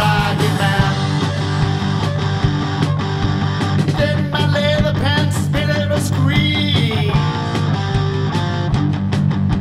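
Rock band track in an instrumental stretch: lead guitar with bending notes over a steady bass line and drums.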